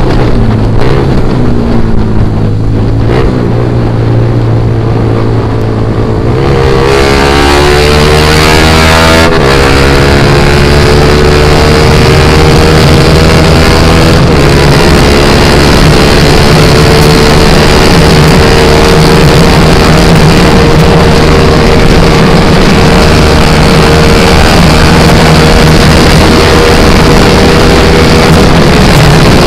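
Honda Sonic 150R's single-cylinder engine through an aftermarket Proliner exhaust, accelerating hard on the road. It rises in pitch from about seven seconds in, breaks briefly at a gear change, then holds high revs steadily.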